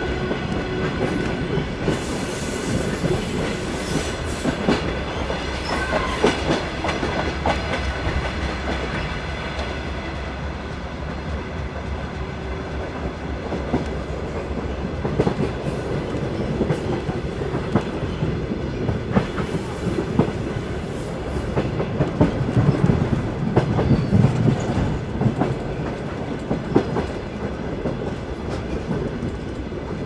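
A moving train, with a continuous rumble and the clatter of its wheels over the rails. A brief high hiss rises over it twice, about two seconds in and again near twenty seconds.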